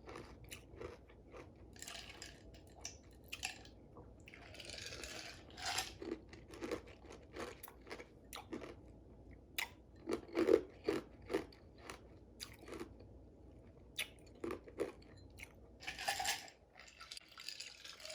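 Ice being bitten and crunched between the teeth close to the microphone: irregular sharp crunches, with a few longer hissing, noisy stretches between them.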